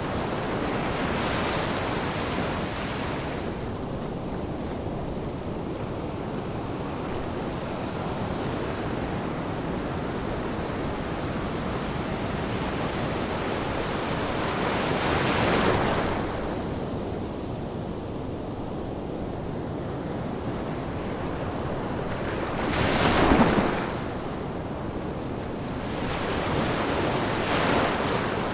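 Ocean surf on a beach: a continuous wash of water with waves breaking in swells, one about halfway through, the loudest about three quarters of the way in, and another near the end.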